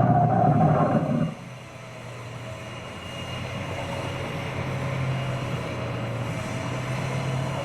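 An animatronic dinosaur's loud recorded roar from its speaker, cut off about a second and a half in. A steady low mechanical hum follows, slowly growing louder.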